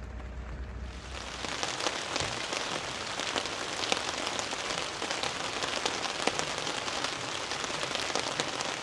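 Rain falling, with many separate drops hitting a surface in a dense, steady spread of small ticks. A low steady hum is heard for about the first second before the rain takes over.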